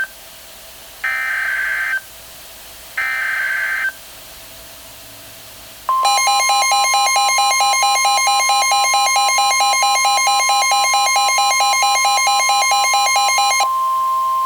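Emergency Alert System activation: the screeching, warbling SAME digital header bursts, about a second each and a second apart, end about four seconds in. About two seconds later comes a long, loud steady attention tone with a fast-pulsing tone layered over it, announcing a snow squall warning.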